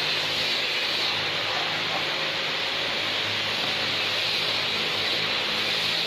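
Steady rushing machine noise with a low hum underneath, holding level without change.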